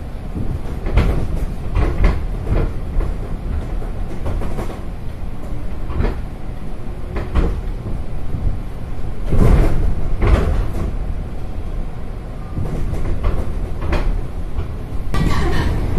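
Electric commuter train running, heard from inside the carriage: a steady low rumble with irregular clattering knocks from the wheels on the track, loudest about nine to ten and a half seconds in.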